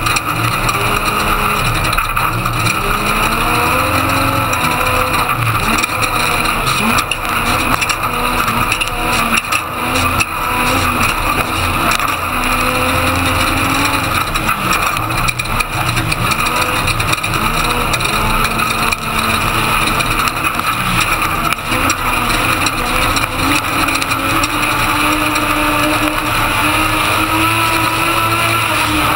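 Class 1450 Ford Ranger desert race truck heard from inside the cab at race pace: the engine revs rise and fall again and again as it accelerates and backs off, over a steady rush of rattle and tyre noise.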